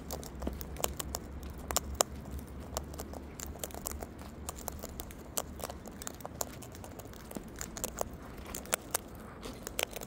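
Sulphur-crested cockatoo cracking sunflower seeds in its beak: a run of irregular sharp cracks and clicks as it husks and munches.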